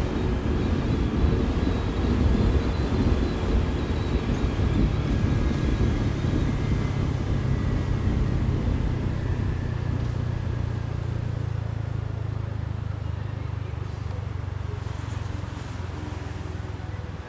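Motorcycle taxi engine running with road and wind rush, settling into a steady low hum and getting gradually quieter.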